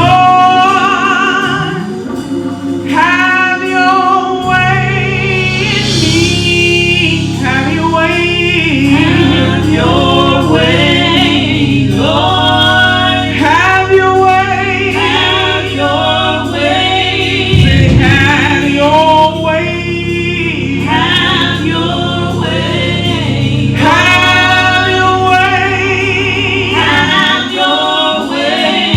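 Gospel choir singing with instrumental accompaniment, voices sustaining long phrases with vibrato over steady bass notes.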